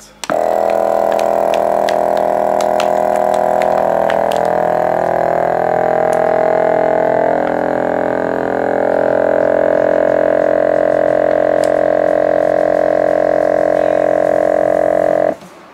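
Vacuum pump of a CASO FastVac 500 commercial vacuum sealer starting up and running loud and steady while it draws the air out of a bag. Its pitch wanders and shifts between about four and eight seconds in as the bag pulls tight, then it holds steady until it cuts off suddenly near the end of the cycle.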